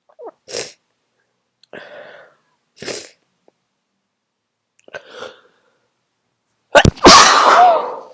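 A person's sneeze building up: several short catching breaths, then one loud sneeze near the end.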